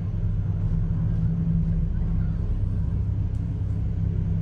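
Steady low mechanical hum and rumble of a moving cable car, heard from inside the cabin.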